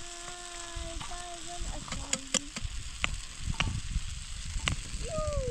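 Eggs and tomato sauce frying with a steady sizzle in a metal pan over a wood fire, a spoon clicking against the pan several times. A steady pitched tone sounds in the first second and a half, and a short falling call just before the end.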